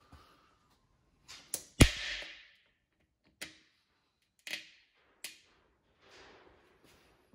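Sharp snaps and clicks from a glue-pull dent puller working a glue tab on a motorcycle's steel fuel tank. The loudest crack comes about two seconds in, followed by a few lighter clicks, as the tab is pulled and comes away from the paint.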